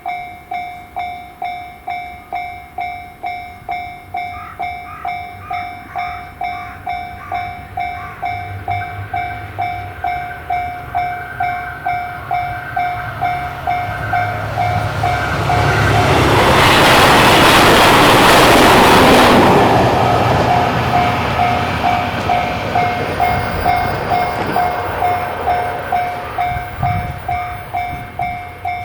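Japanese level-crossing warning bell ringing its steady 'kan-kan' about one and a half strikes a second, while a train passes through the crossing about halfway; the train's rushing wheel and wind noise swells for several seconds and drowns the bell before fading, and the bell keeps ringing after it.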